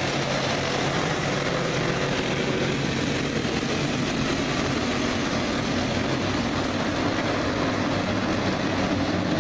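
A pack of dirt-track racing karts with single-cylinder four-stroke clone engines running at speed around the oval. It is a steady, blended engine drone.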